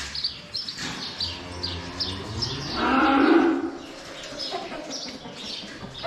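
A cow moos once, a low call of about a second, roughly three seconds in. Small birds chirp over it again and again.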